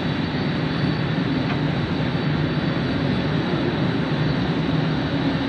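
Steady jet aircraft noise on an airport apron: an even rumble with a hiss over it that does not change.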